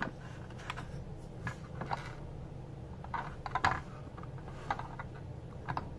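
Handling noise: scattered light clicks and taps as fingers move over a camera and a diecast model car, about eight in all at uneven spacing over a low hum.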